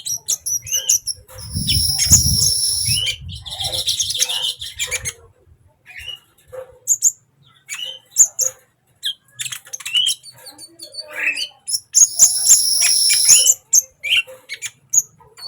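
A sunbird singing energetically, a stream of short, high chirps and twitters broken by two longer buzzy trills, about two seconds in and again near the end. A brief low rumble sits under the first trill.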